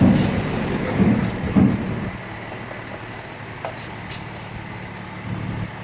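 Dump truck's engine running, louder for the first two seconds and then settling to a steadier low hum, with a few short hisses about four seconds in.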